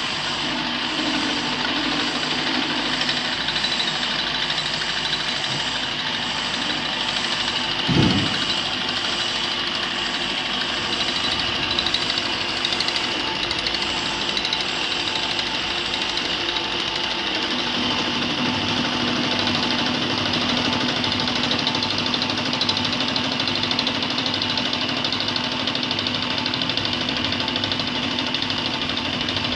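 Batliboi milling machine running, its end mill cutting a clamped metal ring: a steady, loud mechanical cutting noise. A single low thud comes about eight seconds in, and a steady low hum joins just past the middle.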